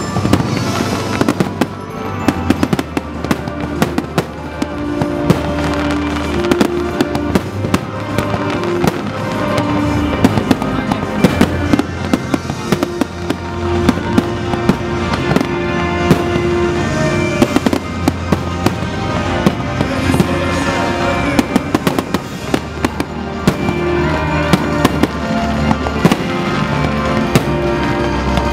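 Fireworks bursting in rapid succession, many sharp bangs throughout, over loud music with long held notes.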